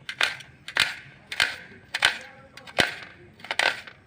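Knife chopping vegetables, hitting the chopping surface with a sharp knock about every half-second to three-quarters of a second, six strokes in all.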